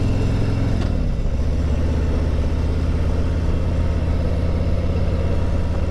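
Harley-Davidson Road Glide's V-twin engine running under way, its pitch dropping about a second in and then holding steady.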